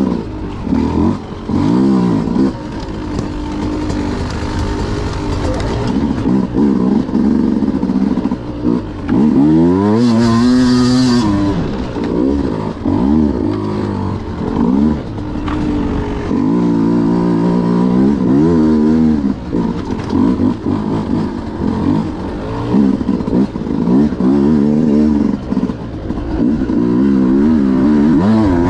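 Beta RR 200 two-stroke enduro motorcycle being ridden hard, the engine revving up and down again and again as the throttle opens and closes, with one long steep rev about ten seconds in.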